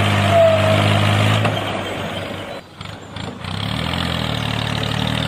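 Vehicle engine idling steadily. It fades out about two and a half seconds in, then picks up again about a second later and settles back into a steady idle.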